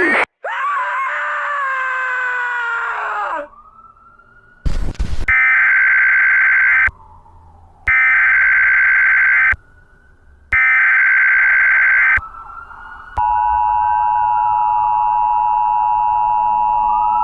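Emergency Alert System broadcast tones. A falling, distorted wail at the start gives way to a burst of static about five seconds in. Then come three SAME header data bursts, the screechy digital squawks with even gaps between them. From about thirteen seconds in, the steady two-tone EAS attention signal sounds, with a faint siren-like tone gliding up and down beneath it.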